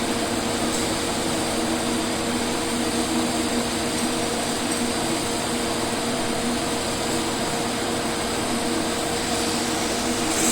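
TIG welding arc burning steadily on a steel corner joint at about 120 amps: an even hiss with a faint steady hum.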